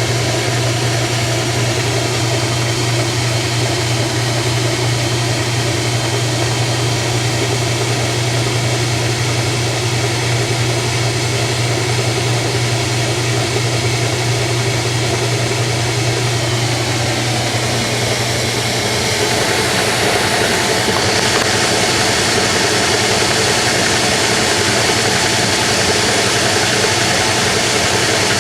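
Washing machine running with its cabinet removed, the exposed motor and works giving a steady hum. About two-thirds of the way through the hum drops away and a louder, hissier sound takes over as the machine changes what it is doing.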